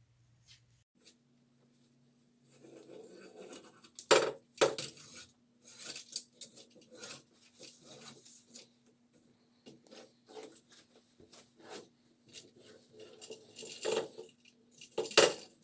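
Rubber spline being pulled out of the channel of a patio door's screen frame: scraping and rustling with sharp clicks and knocks, loudest about four seconds in and near the end.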